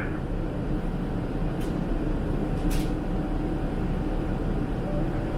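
Steady cabin noise of a Boeing 777-300ER in flight: an even low rumble of airflow and the GE90 engines, with a faint steady tone and a couple of faint clicks near the middle.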